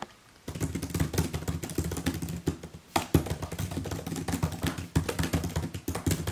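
Rapid typing on a MacBook laptop keyboard, a fast run of key clicks starting about half a second in. It pauses briefly a little before halfway, then resumes with one sharper key strike.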